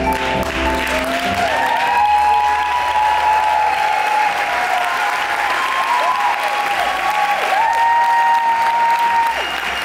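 Audience applauding and cheering, with several high calls sliding up and down over the clapping. The rumba music ends about a second in.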